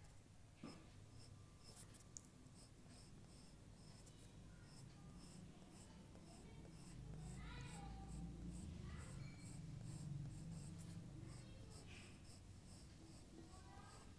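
Faint scratching of drawing strokes on paper over a low background rumble.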